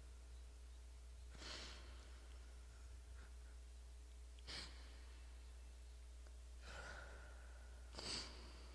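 Faint breaths of a person at a microphone, four short breaths spaced a second or two apart, over a low steady hum.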